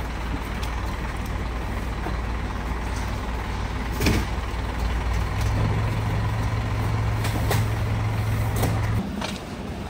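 Delivery truck's engine running with a steady low hum that rises in pitch about five seconds in and cuts off about nine seconds in. A sharp knock comes about four seconds in.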